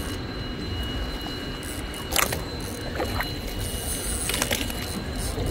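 A boat's engine running low and steady, with water moving along the hull and two brief louder rushes about two and four seconds in.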